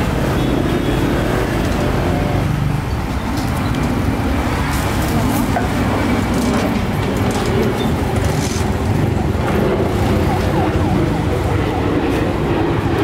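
Steady road traffic, vehicle engines running close by.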